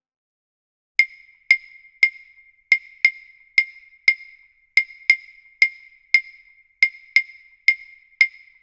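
Background music: after a second of silence, a lone high wood-block-like percussion click starts and repeats in a syncopated rhythm, about two strikes a second.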